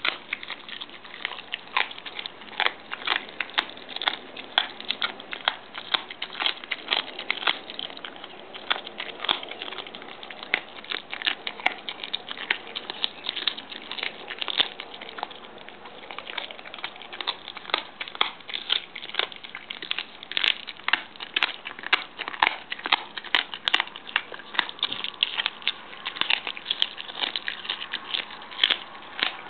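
A small dog chewing a raw salmon tail, the bones and fin crunching and crackling between its teeth in quick, irregular crunches.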